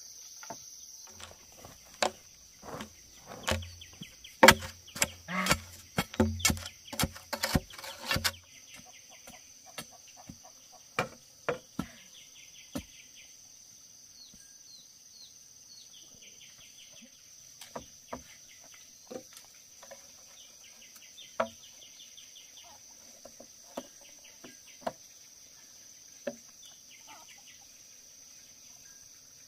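A quick run of sharp knocks and thuds for the first eight seconds or so, then scattered single clicks, from hand work on a bamboo-pole frame. A steady high insect drone runs underneath, with a few short chirps.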